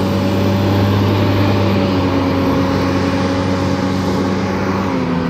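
A vehicle engine running steadily with a low, even hum, its pitch stepping slightly lower near the end.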